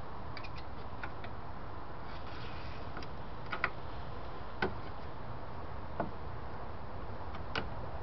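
Light clicks and taps of small metal parts being handled at an early-1960s Valiant's dash switch panel as the wiper switch knob is fitted back on, about a dozen scattered through, over a steady low hum.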